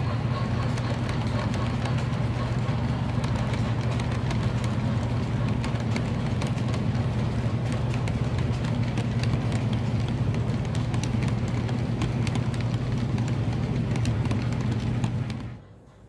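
O gauge model train cars rolling past close by on three-rail track: a steady rumbling hum with rapid fine clicking from the wheels on the rails. It cuts off suddenly near the end.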